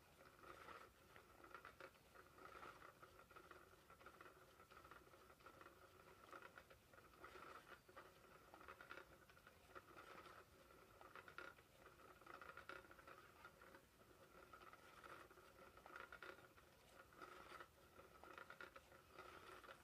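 Faint steady whir of a SmartyKat Hot Pursuit cat toy's small motor, with irregular scratchy rustling as its hidden wand sweeps around under the fabric cover.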